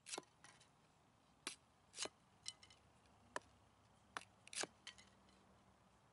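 Faint, irregular sharp clicks and knocks of a steel chopper blade, made from a horse rasp, striking and splitting small wooden sticks: about ten short strikes, unevenly spaced.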